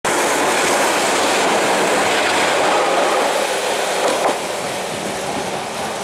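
Eizan Electric Railway Kurama Line electric train passing close by, its wheels running loudly on the rails. A brief squeal comes about four seconds in, then the noise begins to ease as the train goes by.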